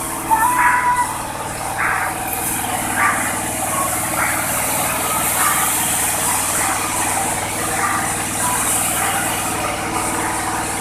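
Diesel engine of a Mitsubishi Canter truck loaded with logs, running steadily at low revs as the truck creeps forward.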